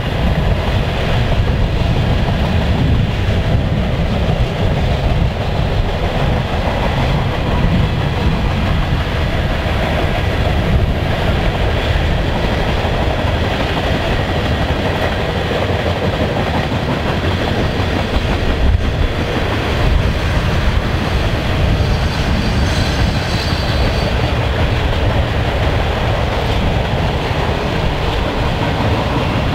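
Freight train's mixed cars (tank cars, boxcars and covered hoppers) rolling steadily past on the rails, with a brief faint high squeal from the wheels about three-quarters of the way through.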